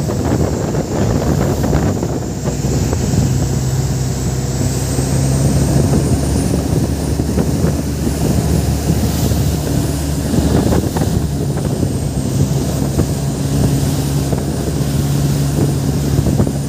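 Motorboat engine running steadily at speed, a constant low drone, with wind buffeting the microphone and the rush of the wake.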